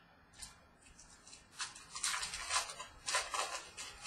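Trading cards being handled and slid against one another while a pack is sorted, a run of short papery rustles and scrapes that is busiest in the middle stretch.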